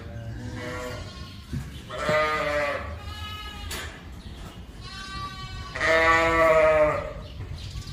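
Newborn lambs bleating, several separate calls, with the loudest and longest about six seconds in.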